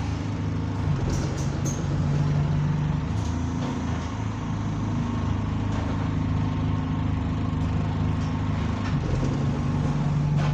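Double-decker bus diesel engine heard from inside the saloon, running with a steady deep hum whose pitch shifts slightly a second in and again near the end, with a few light rattles. The engine has been modified and now sounds like an older Euro 3 engine.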